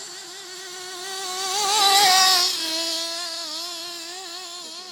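Nitro engine of a two-speed XTM 1/8-scale RC buggy running at high revs with a wavering whine. It grows louder as the buggy passes close about two seconds in, then drops in pitch and fades as it moves away.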